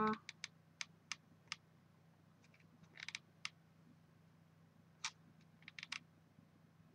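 Faint, scattered clicks and ticks of hands hot-gluing a paper flower, a few at a time with short gaps, over a low steady hum.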